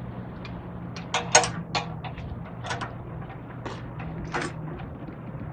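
Half a dozen separate metallic clinks and clacks from steel safety chain and its hooks being handled against the pin box, the loudest about a second and a half in, over a low steady hum.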